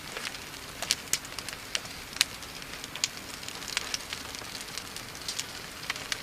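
Small campfire crackling: irregular sharp pops and snaps over a soft steady hiss.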